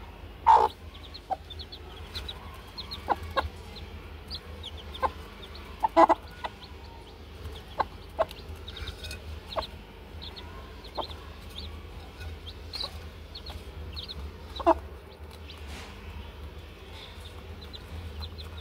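Hen clucking and chicks peeping while they peck feed from a clay bowl. Short high peeps are scattered throughout, with sharp pecking taps on the bowl, a few of them louder.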